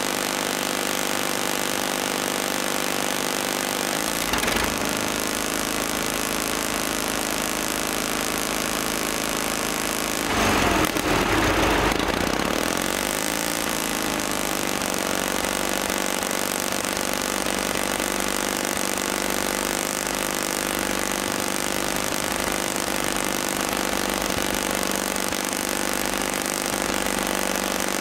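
Engine of a 1955 Bucyrus-Erie 15-B cable shovel running steadily. It surges louder about ten seconds in, and its pitch sweeps as it settles back over the next couple of seconds.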